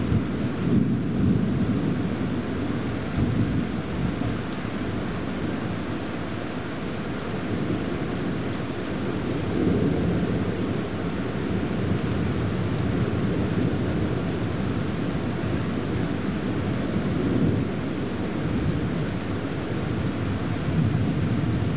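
Thunder rumbling low and continuously, swelling and fading several times, over steady rain.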